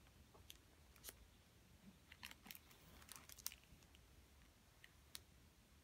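Near silence with faint paper rustles and small clicks as a hardcover book's last page is turned and the book is closed. The clicks are densest in the middle of the stretch.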